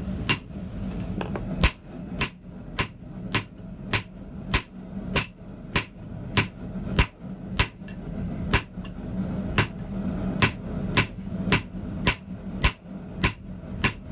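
Steady rhythm of hand-hammer blows on hot D2 tool steel on the anvil, a little under two strikes a second, forging the bar toward a chisel shape; the air-hardening steel stays hard at forging heat and moves slowly under the hammer. A steady low hum runs underneath.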